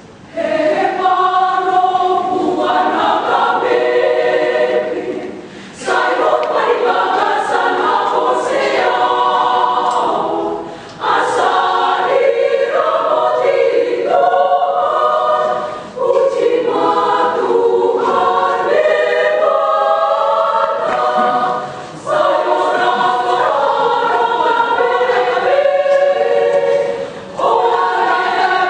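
Women's choir singing together in phrases about five seconds long, each separated by a brief pause for breath.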